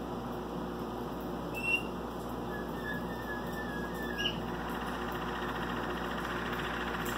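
Waterslager canary singing: a few short, separate notes, then from about four seconds in a continuous, rapid rolling trill.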